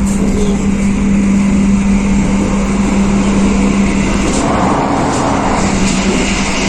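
Steady running noise inside a moving passenger train carriage: a continuous low rumble with a steady hum that drops away about two-thirds of the way through, as a rushing noise swells.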